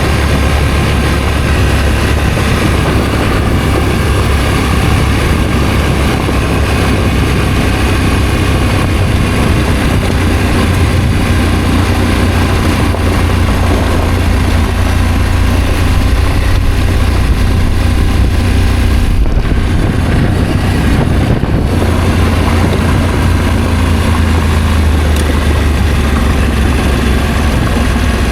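Adventure motorcycle engine running steadily while riding, with a constant low hum and road noise.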